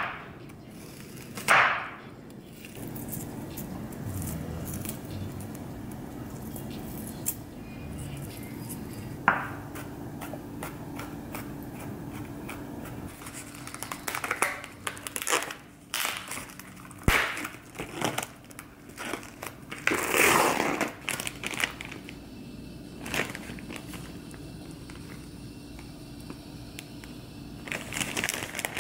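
A chef's knife chopping an onion on a bamboo cutting board, two sharp strokes near the start. Later, a run of crinkling and tearing as plastic wrap is peeled off a foam meat tray, over a faint steady hum.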